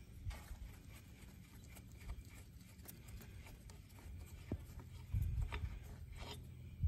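Faint clicks and scrapes of a steel lug nut being spun by hand onto a truck wheel stud. A low rumble swells briefly about five seconds in.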